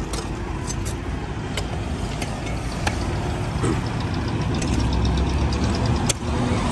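Street traffic with motor vehicle engines running, swelling louder a little past the middle, and a few sharp knocks of hand tools striking rubble.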